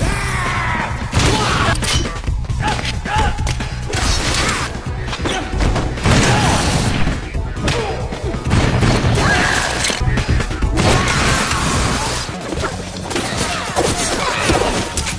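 Action-film fight soundtrack: background score with repeated thuds, crashes and smashing impacts.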